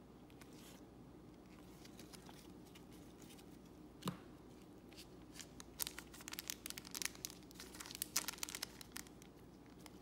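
Wrapper of a trading-card pack being crinkled and torn open by gloved hands: one sharp crack about four seconds in, then a dense run of crinkling, tearing crackles.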